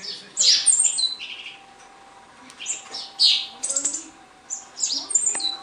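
Young Eurasian tree sparrow, not yet feeding itself, chirping in short runs of high, sharp, downward-sweeping chirps, with gaps between the runs.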